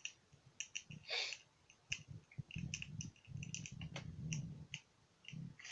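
Bonfire crackling: irregular sharp pops and snaps of burning wood, with a low rumble through the middle.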